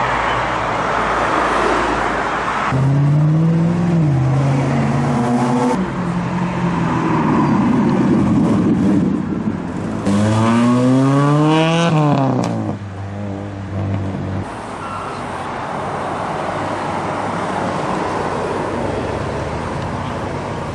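Car engines driving past and revving. The pitch climbs and drops back around three seconds in and again more strongly about ten seconds in, with steady road noise of passing cars between.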